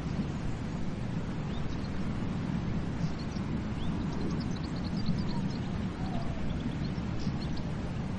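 Ocean waves washing onto a beach, a steady low rush of surf. Small birds chirp faintly in short high calls from a few seconds in.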